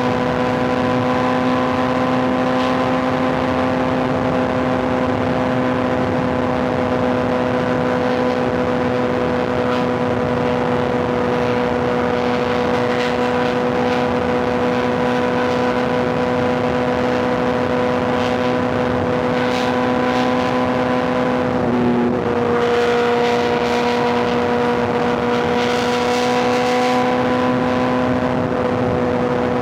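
Superbike inline-four engine running at steady, fairly high revs while cruising, with wind and road noise. The engine note holds one pitch almost throughout, with a brief dip and recovery about three-quarters of the way through.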